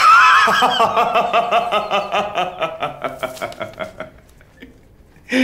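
A man laughing out loud: a long run of quick, repeated 'ha-ha' pulses that starts high and slides down in pitch, dying away about four seconds in.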